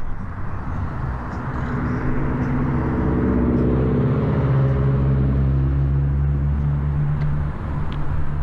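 Vehicle engine running steadily under a rider's wind and road noise, its hum easing slightly lower in pitch as the vehicle slows, with a shift in the hum about seven and a half seconds in.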